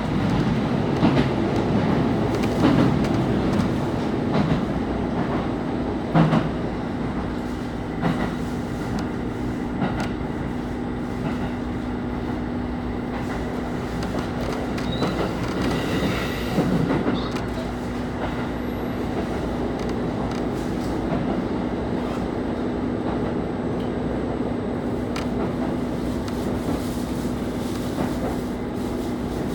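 KiHa 25 diesel railcar running along the line, heard from inside the car: a steady engine drone with a constant hum, and the wheels clicking over rail joints, more often in the first third.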